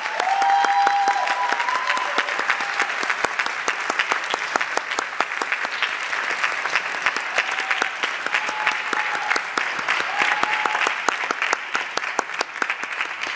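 Audience applauding in a large auditorium, a dense, steady clapping after the band's performance ends.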